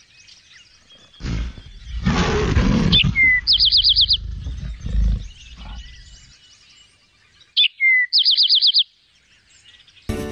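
A bear growling about a second in, with birds chirping: two quick trills of six or seven high notes, each led by a short whistled call.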